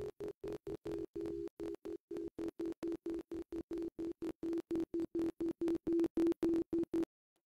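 Crystal singing bowl sounding a steady low tone, played with a wand, heard chopped into even pulses about four or five times a second. It cuts off suddenly about seven seconds in.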